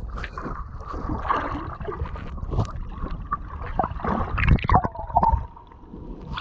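Muffled sloshing and gurgling of shallow seawater heard through a submerged camera, with irregular knocks and clunks against the housing. The loudest knocks come a little past the middle.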